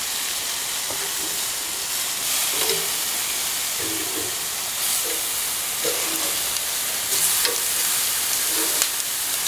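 Steaks searing on a very hot charcoal grill grate, a steady sizzle of meat and marinade fat hitting the bars.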